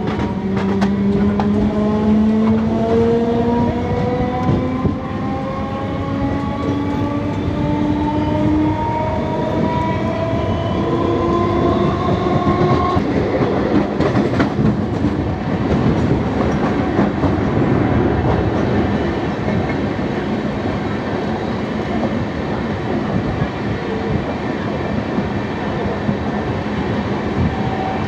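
Suburban electric multiple unit local train accelerating, heard from on board: its traction motors give several whines that rise steadily in pitch for the first dozen seconds, over wheel-on-rail rumble and clatter. About halfway through, a louder rush as another local train passes close on the next track, then steady running noise.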